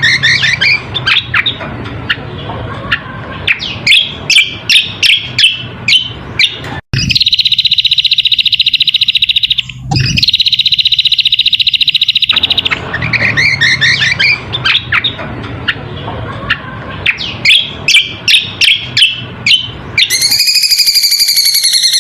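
Cucak kombo (kecial kombok) song from a bird-lure recording: runs of sharp, rapid chirps, two long buzzy trills of several seconds each midway, then a different high, wavering call in the last couple of seconds.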